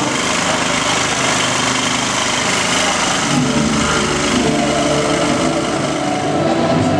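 An engine running steadily at close range, with a dense, even noise over it.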